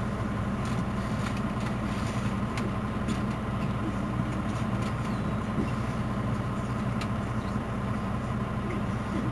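Mercedes-Benz Citaro C2 city bus engine idling steadily at a stop, a low even hum that holds the same pitch throughout.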